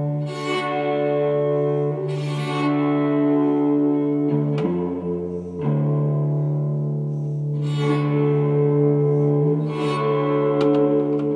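Hollow-body electric guitar played with a bow: sustained droning notes, each swelling with a fresh bow stroke about every two seconds, with a lower note sounding for about a second near the middle. A few light clicks near the end.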